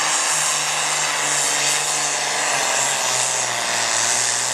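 Heavy super stock pulling tractor engine running flat out under the load of the sled, a loud, steady drone with a strong high hiss. The pitch sags a little about halfway through.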